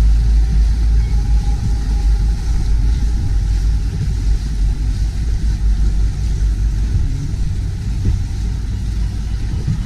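Steady low rumble with an uneven, gusting loudness: wind buffeting the microphone of a camera mounted on a gondola's bow, mixed with choppy water and passing motorboat engines.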